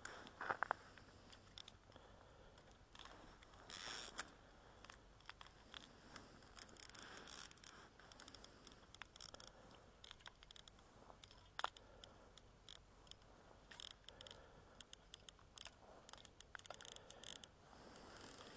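Faint handling noise from an angler's clothing and ice-fishing rod: soft rustling with scattered small clicks, a brief scrape about four seconds in and a sharper click near the middle.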